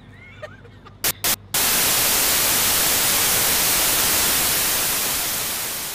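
Television-style white-noise static: two short bursts of hiss, then, about a second and a half in, a loud steady wash of static that eases off slightly near the end.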